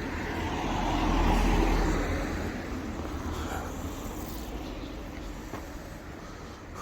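A road vehicle passing close by on the street, its noise swelling to a peak about a second and a half in and then slowly fading away.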